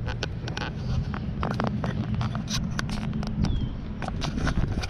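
Handling and movement noise from a handheld action camera carried at a walk: irregular clicks, rubs and scrapes over a steady low rumble on the microphone.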